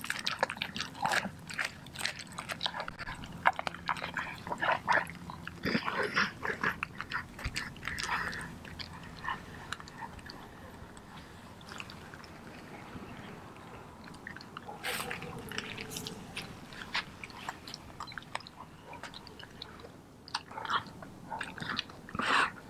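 A Doberman chewing and crunching through a whole raw chicken with feathers on, in a rapid run of sharp crunches. The crunching thins out about halfway through, then comes back in short spells near the end.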